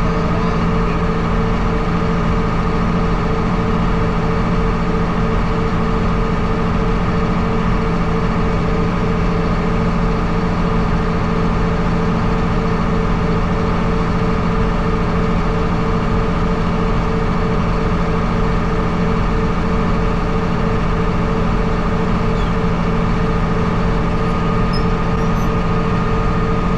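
Heavy diesel engine of farm harvest machinery running steadily at a constant speed, a continuous drone with a held, unchanging pitch.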